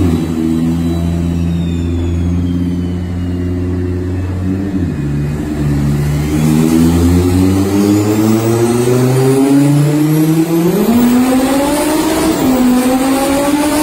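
V10 engine of a swapped VW Golf running on a chassis dynamometer. Its note holds steady, drops about five seconds in, then climbs in steps and rises sharply near the end.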